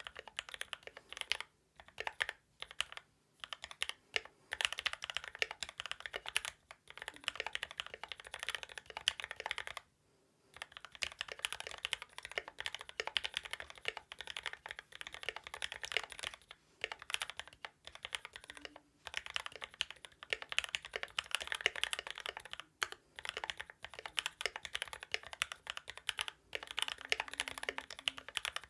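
Mechanical keyboard being typed on fast: an IDOBAO ID80 with lubed and filmed Gateron Milky Yellow linear switches, giving rapid key clicks in bursts with short pauses, about ten seconds in and again near 23 seconds.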